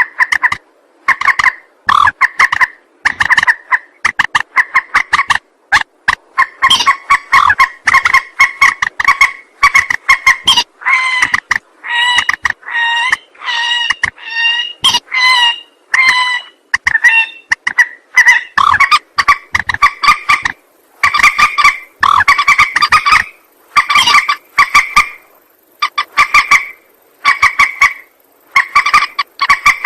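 Mandar (rail) lure call: a rapid, loud series of short pitched calls, several a second, repeated in bouts with brief gaps. It is the recorded call played to draw in mandar birds for trapping or hunting.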